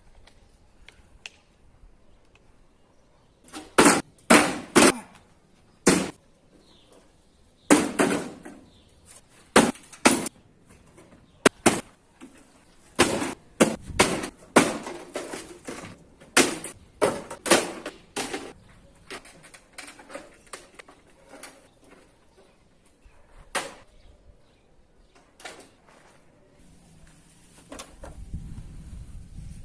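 A series of loud, irregular bangs and knocks, hard impacts coming singly and in quick clusters. They stop after about 26 seconds, and a low hum starts near the end.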